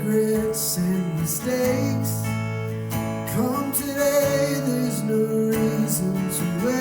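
Worship song music: strummed acoustic guitar chords with a sung melody over them.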